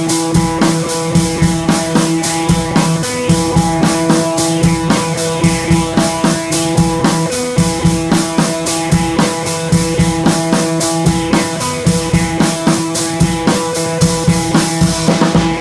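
Intro music: a band track with a steady drum-kit beat, bass drum and guitar.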